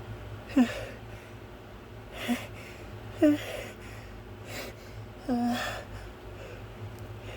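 A man's short, sharp voiced gasps, four in about five seconds, the last one a little longer. They are the catching breaths of a sneeze building from a tickled nose.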